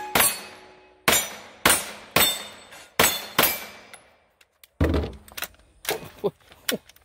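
Six shots from a semi-automatic carbine, about half a second to a second apart, each with a ringing tail as the steel targets are hit. After about a second's pause come a dull thump and several light knocks and clicks as the gun is handled and set down on a plastic drum.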